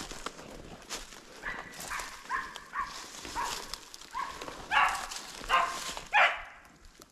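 A Wachtelhund barking in about eight short, high yelping barks, the last three the loudest, on reaching a dead roe deer at the end of a track. Dry leaves rustle underfoot before the barking starts.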